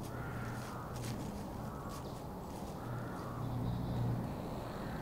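Crows cawing, a few harsh caws a couple of seconds apart, over a low steady hum.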